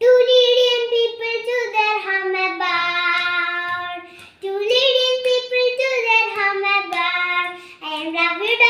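A young girl singing solo without accompaniment, holding long notes in two phrases with a short breath about four seconds in.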